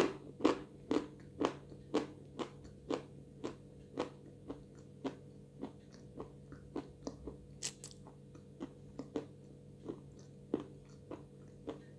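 Close-mic crunching of edible Znamensky chalk being chewed: sharp crunches about twice a second, loudest at first and growing fainter.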